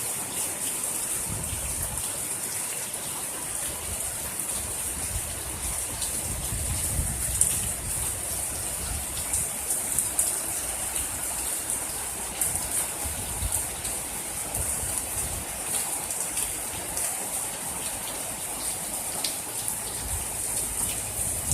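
Heavy downpour: a steady hiss of rain with an uneven low rumble underneath and scattered sharper drop hits.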